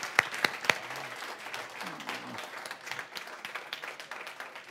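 Congregation applauding: sharp hand claps, loudest in the first second, thinning to scattered clapping that fades away.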